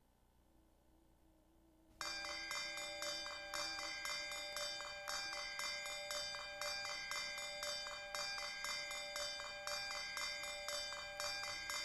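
Near silence, then about two seconds in a set of bells starts ringing suddenly: several steady pitches held together and struck again in a rapid, even pulse, as part of recorded music.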